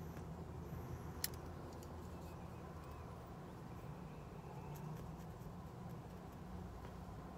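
Quiet, steady low hum in a car's cabin while a freshly lit tobacco pipe is puffed, with faint small ticks and one sharp click about a second in.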